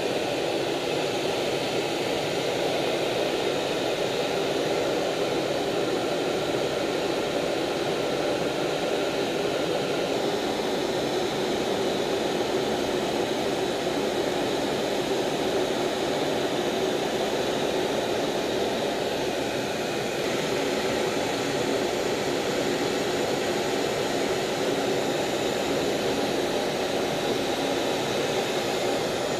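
Steady jet-engine and airflow roar heard from inside a fighter jet's cockpit in flight, an even drone with a hiss above it.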